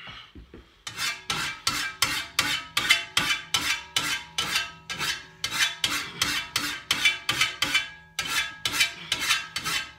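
A hand file rasping across the teeth of a Husqvarna 525RX brushcutter's steel grass blade clamped in a bench vise, sharpening the cutting edges. Steady strokes, about three a second, with the blade ringing faintly under them. They start about a second in and pause briefly near the end before going on.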